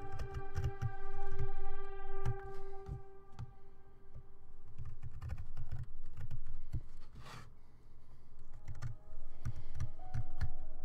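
Hand carving tool cutting into a woodcut block in short, irregular strokes: sharp clicks and dull knocks, over soft background music with held notes.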